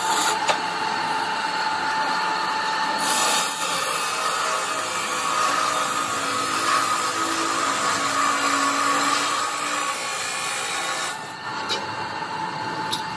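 Electric abrasive cut-off saw grinding through metal: a dense, steady grinding noise with a whine from the spinning wheel. The grinding eases off about eleven seconds in, followed by a few sharp clinks.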